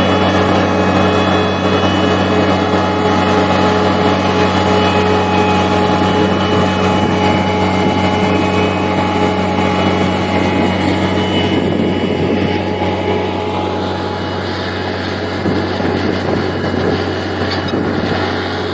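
A heavy construction machine's engine running steadily, with a constant low hum and a steady whine. The higher part of the sound drops back a little about two-thirds of the way through.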